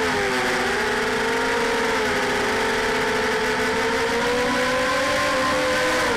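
Lumenier QAV250 racing quadcopter's brushless motors and 5030 propellers whining in flight over a steady rush of air. The pitch dips early on and again about two seconds in, rises slowly with throttle, then drops near the end.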